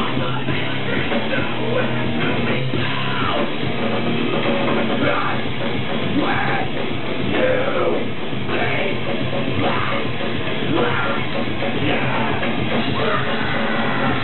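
Heavy metal band playing live at a loud, even level: drum kit and amplified instruments.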